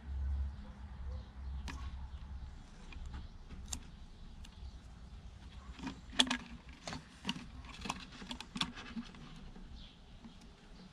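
Handling noise from a plastic bottle and clear plastic tubing on a table: a low rubbing at first, then scattered clicks, taps and crinkles that bunch together past the middle, the sharpest there.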